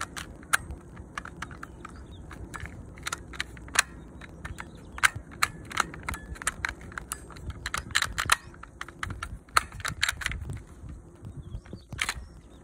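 Vektor CP1 airsoft pistol clicking over and over as its trigger and controls are worked by hand, with irregular sharp plastic-and-metal snaps. A louder snap comes near the end as the magazine is drawn out.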